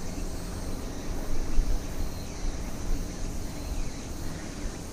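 Wind buffeting a handlebar-mounted action camera's microphone as a Giant Talon 2 mountain bike rolls along asphalt: an uneven low rumble with tyre noise underneath.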